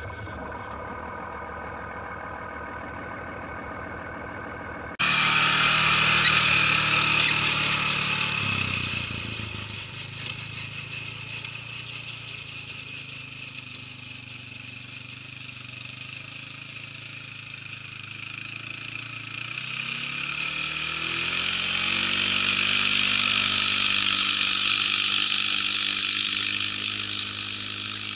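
Intro music for about the first five seconds, then it cuts off suddenly to a Kawasaki quad bike engine running as it tows a bait spreader across the paddock, with a steady hiss over it. The engine note drops, runs quieter for a while, then climbs again and grows louder near the end.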